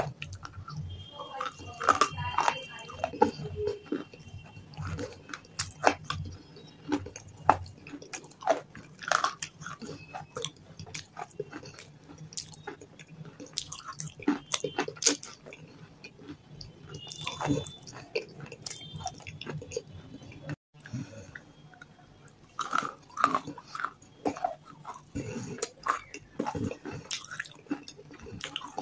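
Close-up chewing and biting of half-roasted edible clay chunks dipped in wet clay paste: irregular crisp crunches mixed with wet, sticky mouth sounds.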